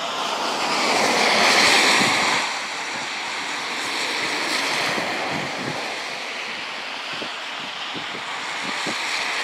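Gusting wind: a steady rushing hiss that swells to its loudest about two seconds in, then eases.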